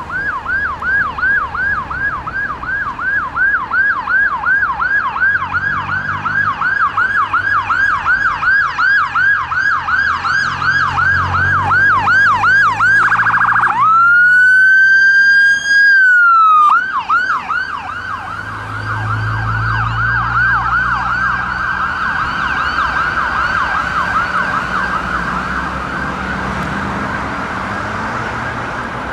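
Ambulance electronic siren on a yelp, sweeping up about three times a second. Partway through it switches briefly to a faster pulse, then to one long tone that rises and drops away, before going back to a fast yelp that blurs into a rapid warble. The vehicle's engine is heard passing close in the middle.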